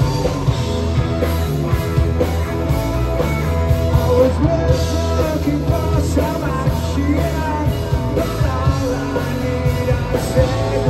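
Live rock band playing loud with electric guitars and a singer over a steady beat.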